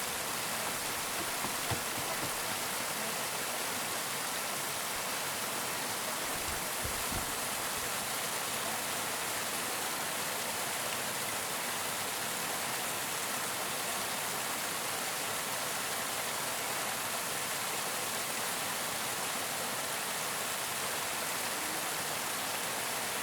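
Waterfall: water cascading in a steady, even rush, with a couple of faint clicks near the start.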